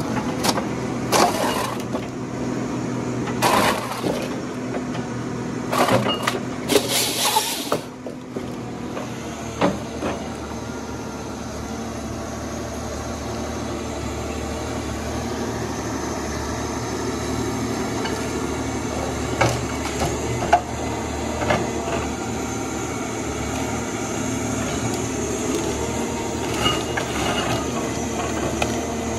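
John Deere 1270G harvester running steadily while its head works pine stems. Over the first eight seconds there are several loud cracks and snaps of breaking wood and branches. After that the machine runs on with only a few scattered knocks.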